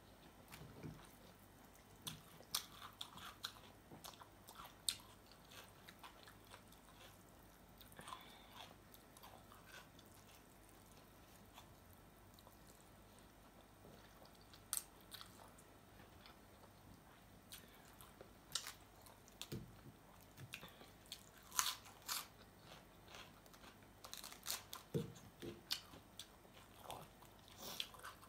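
A person eating close to the microphone: chewing and biting, with irregular sharp crunches and mouth clicks that are sparse through the middle and come thicker over the last few seconds. The food is Thai cucumber salad with rice noodles and fish-sauce fried chicken.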